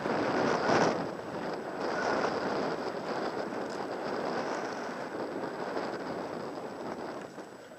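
Wind rushing over the microphone of a camera riding a mountain bike down a grass and dirt track, mixed with tyre rolling and bike rattle. It is loudest in the first second and eases off toward the end.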